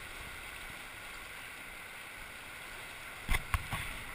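Steady rush of the Virgin River flowing through the Narrows. Near the end come three short knocks of fingers handling the camera.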